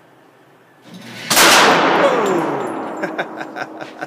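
A single handgun shot in an indoor shooting range, loud and sharp with a long echoing tail, about a second in. It is followed by a run of light clicks.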